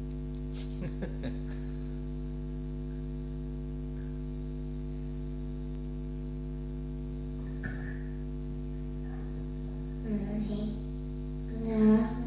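Steady electrical mains hum with its overtones, running under the recording. A few faint clicks come about a second in, and a voice is heard briefly near the end.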